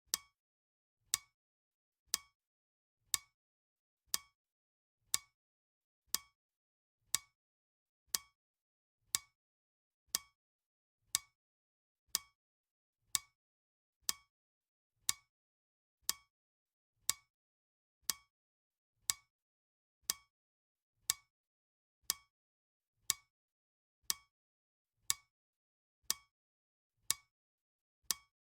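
Clock ticking once a second: a steady, even series of short, sharp ticks, the timer's tick-tock sound effect.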